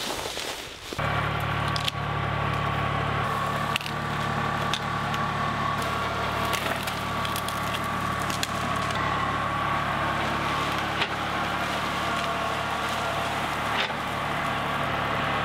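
Kubota compact diesel tractor engine running steadily under load as its front loader pushes brush and branches, with occasional sharp cracks of wood snapping.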